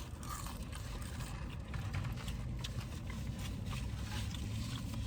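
A steady low hum with faint scattered clicks and smacks of eating and chewing.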